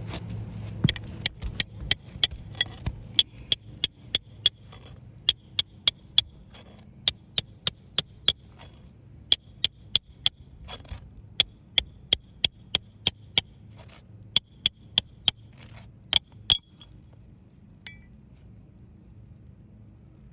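Hammer tapping a steel pry bar, driving it under a three-tab asphalt shingle to break the tab loose: sharp ringing metal-on-metal strikes, about three a second in short runs with brief pauses. Midway there is one short scrape, and the strikes stop a few seconds before the end.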